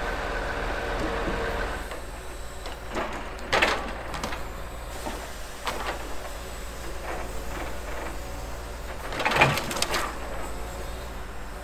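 Timber truck's hydraulic log-loading crane at work, with the truck's Scania V8 diesel running steadily beneath and a steady whine in the first two seconds. Two loud knocks as the crane handles logs, one about three and a half seconds in and one near the end, with a few lighter knocks between.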